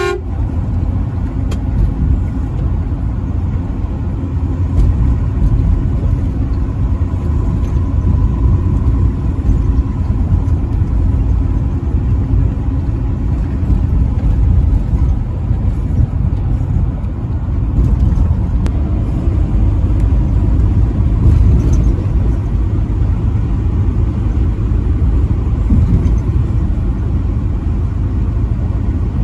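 Truck driving at highway speed, with a steady low rumble of engine and road noise.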